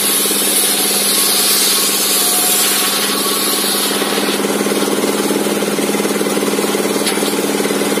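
Homemade table sawmill's large circular saw blade ripping timber, a steady high hiss of the cut over a continuous engine-driven mechanical drone. The cutting hiss eases about halfway through as the board clears the blade, leaving the blade and drive running on.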